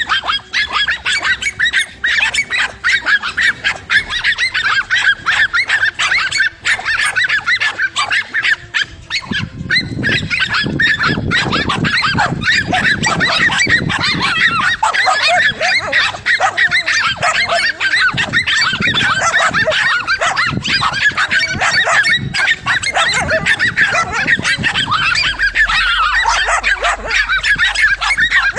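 A loud, continuous chorus of overlapping animal calls, rapid and unbroken, growing fuller about ten seconds in.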